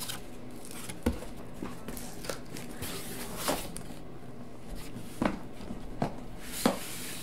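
Boxes and packaging being handled during an unboxing: a few separate taps, scrapes and rustles over a low steady hiss.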